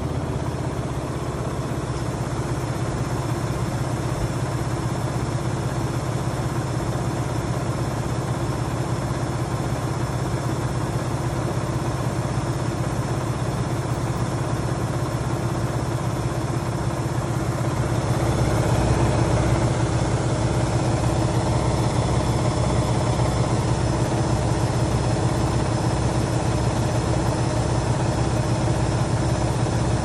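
KitchenAid front-loading washing machine running its spin cycle, a steady motor and drum hum that grows louder a little over halfway through.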